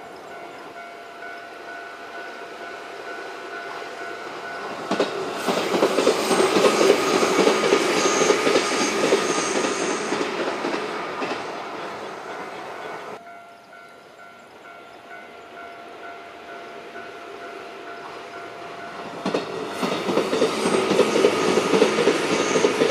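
Electric train running past on the line: rumble and wheel clatter build up suddenly about five seconds in, then fade away. The sound cuts off abruptly, and the same kind of pass builds up again near the end.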